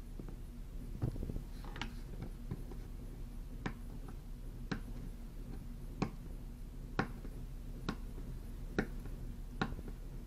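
A string of short, sharp clicks or taps, roughly one a second and not quite evenly spaced, over a low steady hum.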